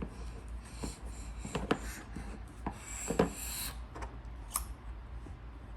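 Light handling noises from a Play-Doh toy set: scattered small clicks and soft rubbing, with a short scrape about three seconds in.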